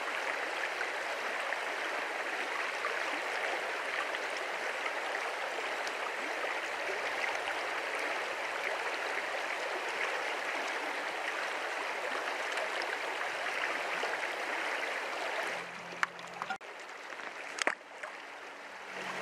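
Shallow, rocky stream water flowing steadily over rocks in a continuous rush. About three-quarters of the way through it drops quieter, and a couple of brief knocks or splashes follow near the end.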